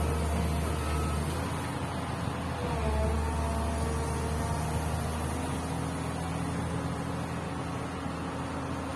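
Komatsu PC200 excavator's diesel engine running. Its low drone drops about a second in, swells again around three seconds as the load changes, then settles.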